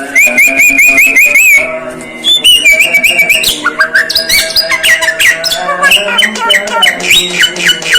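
Javan myna calling: quick runs of short, rising whistled chirps, several a second, with a short break about two seconds in, then a denser run of varied chirps.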